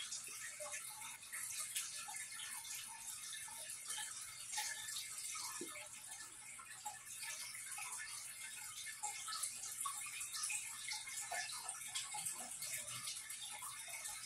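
Faint steady trickle of running water with scattered small drips and ticks, heard in a small room.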